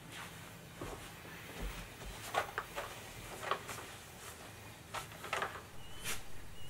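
A person sitting down on a sofa with a soft low thump, then handling and rummaging in a canvas tote bag: a string of short rustles and light knocks.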